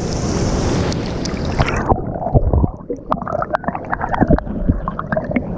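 Wind buffeting the microphone over the sound of surf. About two seconds in, the wind noise drops away suddenly, leaving a string of small clicks and knocks.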